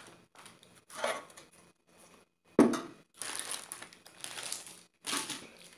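Baking parchment paper crinkling and rustling in irregular bursts as it is handled and pulled away from a sheet of baked sponge cake, with one sharper thump about two and a half seconds in.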